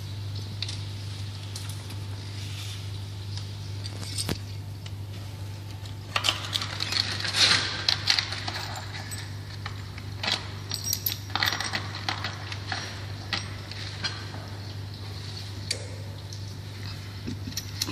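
Small brass pipe connectors and copper tube pieces clinking and rattling as they are handled, in scattered bursts from about six seconds in, over a steady low hum.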